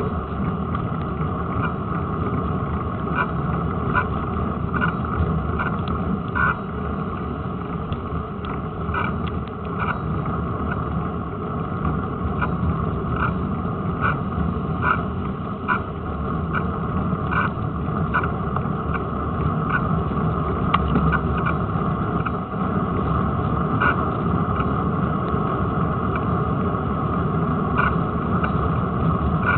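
Riding noise from a bicycle picked up by a camera clamped to its front forks: the steady rumble of the tyre rolling on tarmac with wind, and short clicks and rattles about every second as the bike jolts over the road surface.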